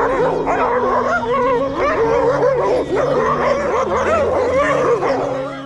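Several dogs barking and yipping at once in a dense, pitch-wavering tangle of calls, with low held music notes underneath.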